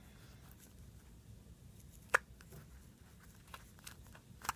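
Quiet handling of a small foam squishy toy, with one sharp click about two seconds in and a few fainter ticks near the end.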